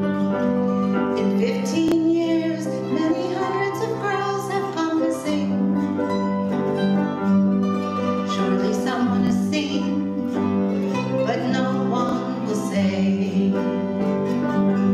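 Acoustic ensemble playing an instrumental passage: grand piano with acoustic guitar and other plucked strings, steady throughout.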